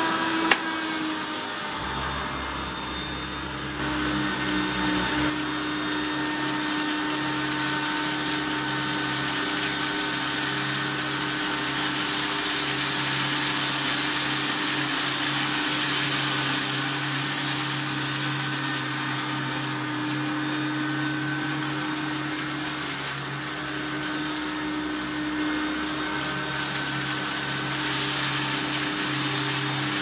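Hoover Turbomaster U4362 upright vacuum cleaner running on carpet: a steady motor hum with a continuous hiss of air. A single sharp click about half a second in, and the tone shifts slightly in the first few seconds before settling.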